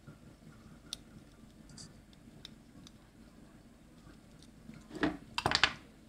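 Side cutters nipping through the lead wire of a washing-machine motor's carbon brush: a few faint ticks of the tool and small metal parts being handled, then a short cluster of sharp clicks about five seconds in.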